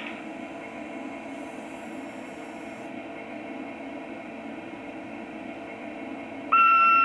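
Sound module of an LGB garden-scale model of the Rhaetian Railway Ge 4/4 I electric locomotive, standing still and playing a steady low running hum through its small loudspeaker. About six and a half seconds in, a loud, steady single-note horn cuts in suddenly.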